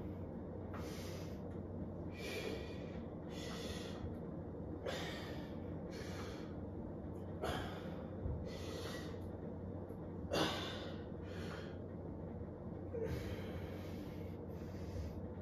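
A man breathing hard through dumbbell curl reps: forceful puffs of breath about once a second, the strongest sharp exhale about ten seconds in.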